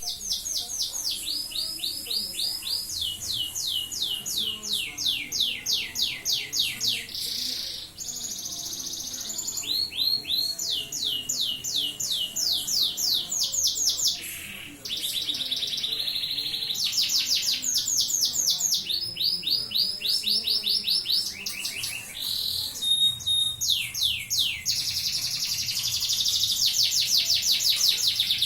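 Domestic canary singing a long, unbroken song of fast trills: rapid runs of repeated high notes, with the phrase changing every second or two and only one brief break in the middle.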